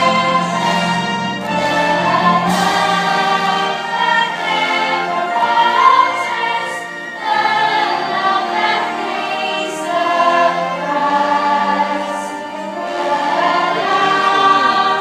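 Choral singing with band or orchestral accompaniment: a sustained, slow hymn-like melody with many voices.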